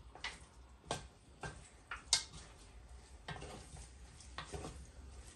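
Wooden spoon stirring meat and chicken in a large cooking pot, scraping and knocking against the pot in irregular strokes, with the loudest knock about two seconds in.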